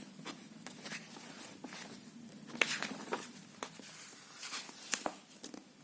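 Faint scattered clicks and short rustles in a quiet small room, irregular, with the clearest ones about three seconds in and near the five-second mark.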